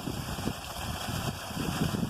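Wind buffeting the microphone: an irregular low rumble over a steady background hiss.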